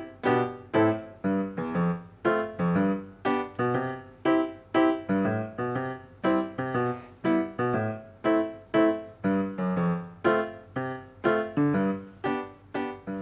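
Background piano music: a gentle line of notes struck about twice a second, each ringing and fading before the next, with the last note dying away at the end.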